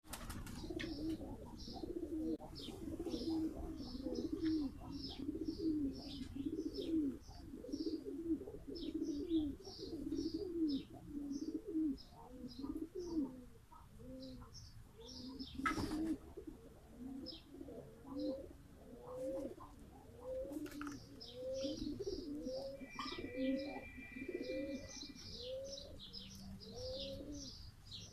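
Domestic pigeons cooing without a break, several overlapping at first, then a steady run of single coos about one a second in the second half. Small birds chirp high above the cooing throughout.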